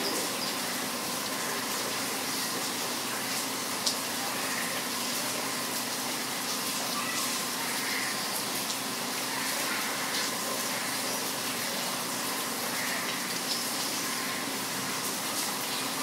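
Steady rain falling, an even hiss with scattered drip ticks and one sharper tap about four seconds in. A few faint bird chirps come through the rain now and then.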